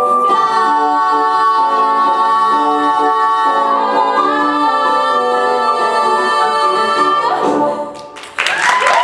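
Singers with accompaniment hold the long final note of a musical-theatre song, stepping up in pitch about four seconds in and cutting off about seven and a half seconds in. Audience applause breaks out about a second later.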